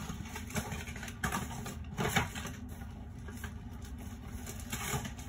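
Someone handling and rummaging through boxed toys out of view: a few scattered light knocks and rustles over a steady low background hum.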